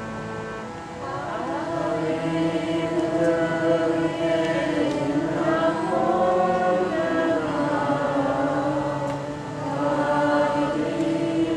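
Kirtan: voices chanting a devotional mantra together over a steady held drone, the sung line rising and falling above it.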